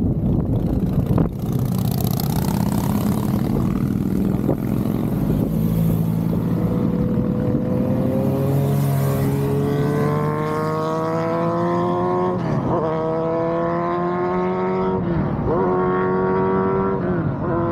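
Motorcycles riding past in a continuous procession, engines running. From about a third of the way in, one engine's note climbs steadily and dips sharply three times, as the bike accelerates and shifts up through the gears.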